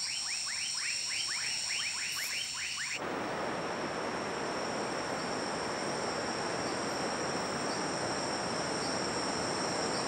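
A poison frog, shown as a three-striped poison frog, gives a rapid series of short chirping calls, about four a second, over a steady high-pitched insect drone. The chirps stop abruptly about three seconds in and give way to an even rushing noise, while the insect drone carries on.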